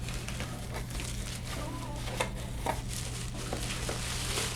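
Packaging crinkling and rustling as items are pulled out of a box, with small irregular clicks and crackles throughout, a little louder near the end.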